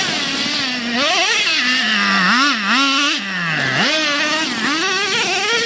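A gas-powered RC car's small engine revving up and down as it is driven, its high-pitched note rising and falling several times with the throttle.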